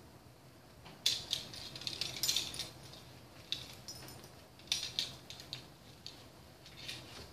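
Crinkled cloth surgical wrap rustling in short, irregular bursts as it is folded and smoothed over a gown pack.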